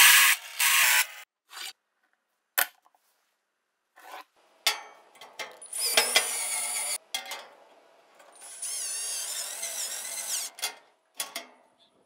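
A drill press bit cutting into a metal latch plate for about the first second, then scattered clicks and knocks. After that, a cordless drill drives screws into the latch in two runs of a few seconds each, its motor whine wavering up and down in pitch.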